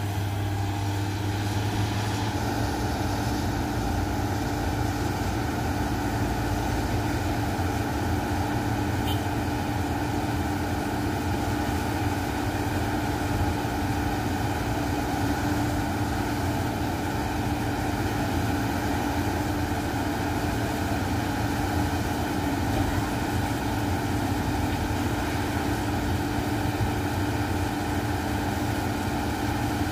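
Hitachi hydraulic excavator's diesel engine running steadily, with a dump truck's engine running alongside.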